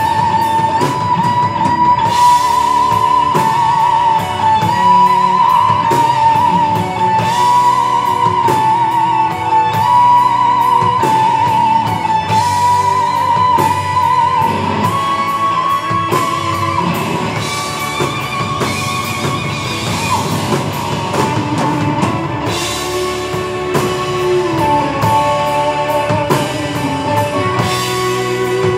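Live rock band playing an instrumental section: a lead electric guitar solos in long held notes with bends and vibrato, over drums and rhythm guitar.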